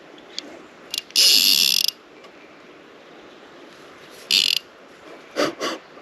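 Spinning reel's drag buzzing as a hooked carp pulls line against eight-pound line: a loud run lasting almost a second about a second in, and a shorter one past four seconds. Two shorter, duller bursts of noise follow near the end.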